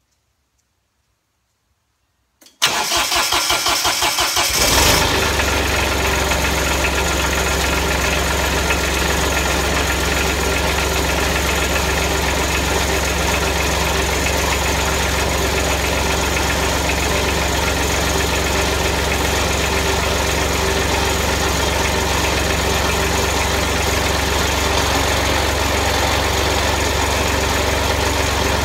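Ferris lawn mower engine started from cold: after a couple of seconds of quiet it cranks in even pulses for about two seconds, catches, and settles into a steady run.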